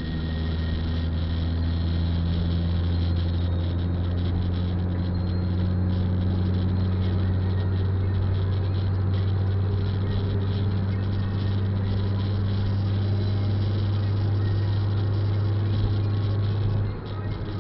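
Steady cabin noise of a car driving on a wet highway: a low engine drone with tyre noise on the wet road. The drone dips briefly near the end.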